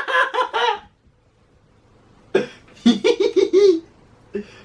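A man laughing in two short bursts of quick, repeated voiced pulses, the second about two and a half seconds in.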